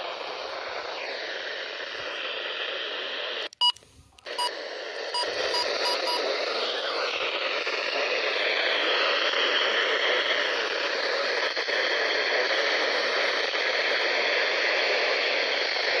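Handheld Midland weather radio receiving NOAA Weather Radio on 162.400 MHz through heavy static hiss, with a faint voice buried in the noise. About four seconds in the audio drops out briefly, and a few short beeps sound between about four and six seconds in.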